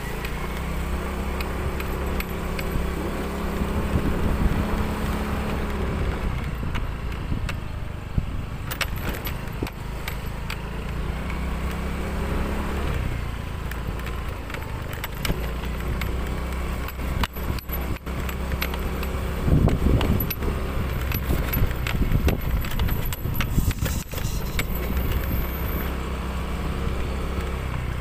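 Small motorcycle engine running steadily at riding speed, with rattles and knocks from the bumpy path, more of them in the second half.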